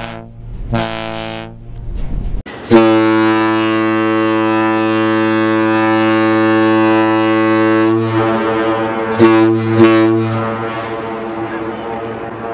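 Ferry horns sounding. Two short blasts come first. After a brief gap there is a long, steady, low blast of about five seconds, which then carries on less evenly, swelling twice, for several more seconds.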